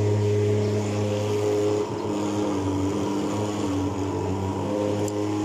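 Thermal fogging machine running, a steady low engine drone as it pumps out insecticide smoke.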